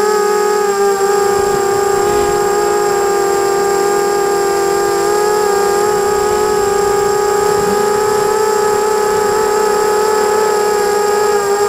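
A GT 250 racing quadcopter's electric motors and propellers whining steadily in flight, heard from its onboard camera. The pitch wavers slightly as the throttle changes.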